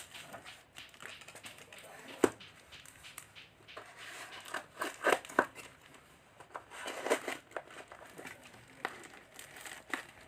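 Plastic packaging crinkling and rustling as a parcel is unwrapped, in uneven handfuls with a sharp click about two seconds in and two denser bursts of rustling around the middle and later on.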